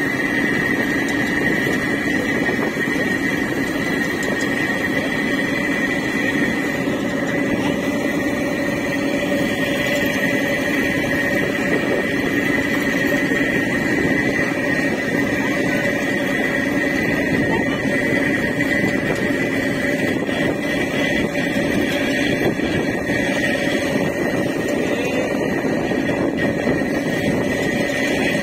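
A boat's engine droning steadily with a constant high whine on top, over the rush of river water along the hull.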